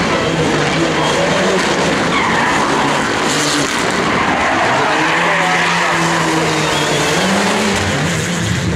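Mitsubishi Lancer Evolution rally car drifting sideways through a tarmac corner: the turbocharged four-cylinder engine revs up and down as the tyres skid.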